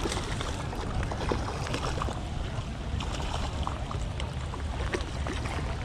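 Wind rumbling on the microphone outdoors in the rain, with scattered light taps of raindrops.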